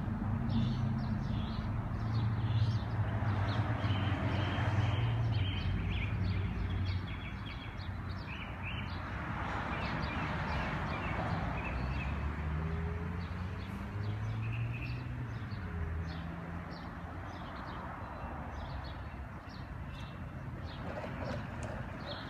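Street ambience: vehicle engines humming, with cars passing about four and ten seconds in, and birds chirping throughout.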